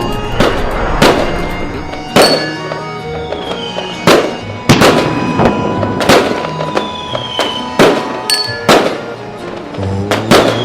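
Fireworks going off about once a second, sharp bangs with a short ringing tail. Several are led by a whistle falling in pitch, over music.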